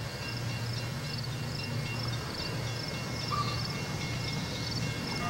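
Burlington Northern diesel-electric locomotive at the head of a double-stack container train approaching under power, its diesel engine giving a steady low drone.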